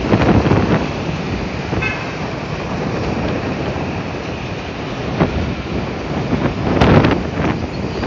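City street traffic noise rising from the road below, with wind buffeting the microphone. A short vehicle horn toot comes about two seconds in, and a stronger gust of wind on the microphone comes about seven seconds in.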